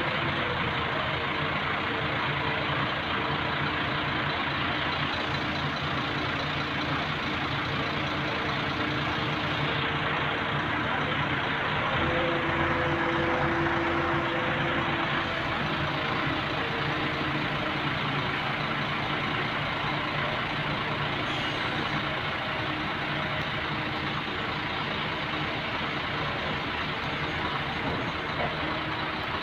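Heavy vehicle's engine running steadily during container loading, getting a little louder for a few seconds about twelve seconds in.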